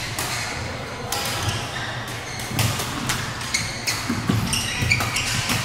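Badminton rackets striking a shuttlecock in a doubles rally: irregular sharp smacks, among more hits and chatter from neighbouring courts, echoing in a large sports hall.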